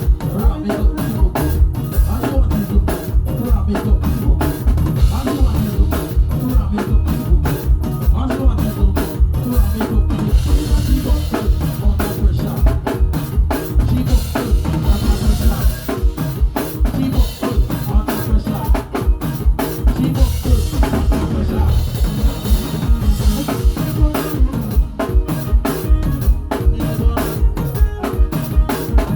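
Drum kit played continuously in a steady, fast groove, with bass drum strokes several times a second under snare hits.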